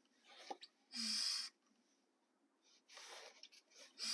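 Hand-pumped oil fluid extractor being stroked to build vacuum and draw hydraulic oil up its tube from the tractor's transmission. Each stroke is a short hissing rush of air: a loud one about a second in and another near the end, with fainter ones between.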